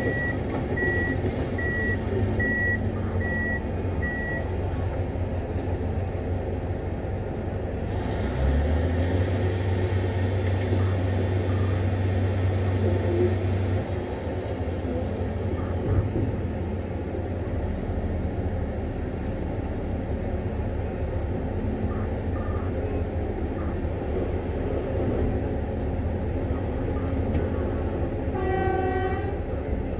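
Heavy mining machines running together: the diesel engines of a Liebherr 9400 excavator and a CAT 785C haul truck during loading. A reversing alarm beeps steadily for the first few seconds. An engine note rises under load about eight seconds in and holds for several seconds. A short horn blast sounds near the end.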